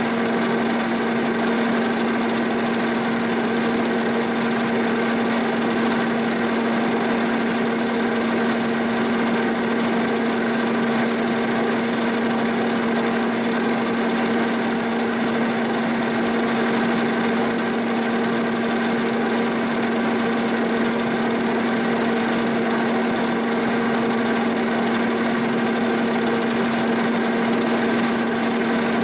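Boring bar cutting in the bore of a prehardened 4140 steel backhoe boom part, with a steady, unbroken ringing tone. The tone is typical of the chatter this part sets up by vibrating like a tuning fork.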